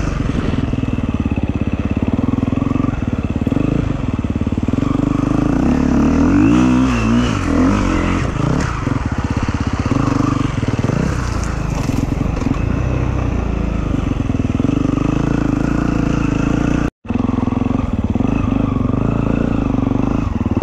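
Off-road motorcycle engine running hard, its revs rising and falling several times about six to eight seconds in. The sound cuts out for an instant a few seconds before the end.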